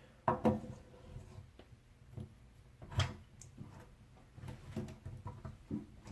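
Scattered knocks and clicks of a replacement faucet valve being handled and pushed down into the faucet body, the loudest knock about three seconds in.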